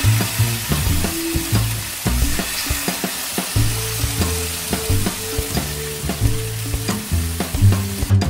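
Marinated chicken breasts sizzling as they fry in oil on a ridged grill pan: a steady, loud frying hiss. Background music with a bass line and a regular beat runs underneath.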